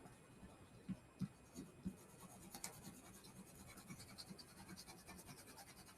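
Faint handling of paper-craft materials on a work surface: a few soft taps about a second in, then fast, fine scratching from about two seconds in.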